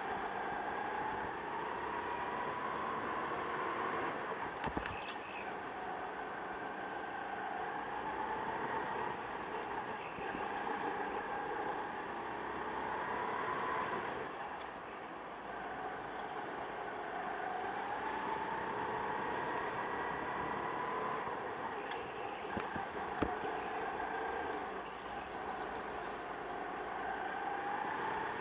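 Racing go-kart's motor lapping a track: its pitch climbs steadily for several seconds, then drops back and climbs again, about five times. A couple of sharp knocks stand out.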